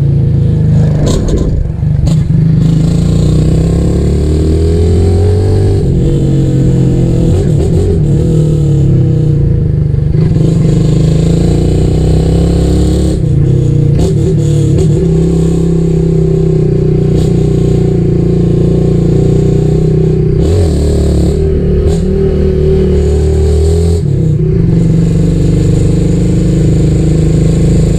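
Single-cylinder 150 cc fuel-injected motorcycle with a loud aftermarket exhaust being ridden, the engine revving up and dropping back again and again as it accelerates and shifts, with wind noise on the microphone.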